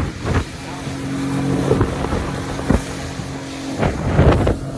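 An engine running at a steady pitch, starting about half a second in, with wind gusting on the microphone several times.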